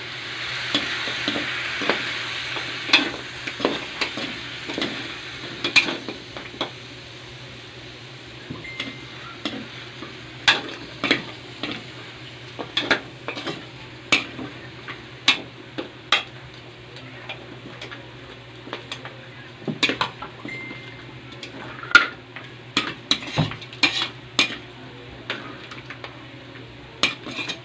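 Soy sauce sizzling as it hits pork hock pieces frying in a hot metal wok; the sizzle is loudest in the first few seconds. A metal spatula scrapes and clinks against the wok in irregular strokes as the meat is stirred.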